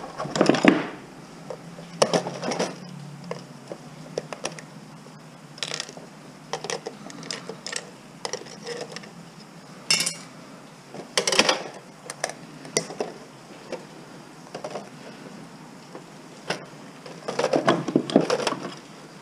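Metal computer parts and hand tools clinking and clattering on a workbench in scattered, irregular bursts as a desktop computer is taken apart and its motherboard lifted out of the steel case.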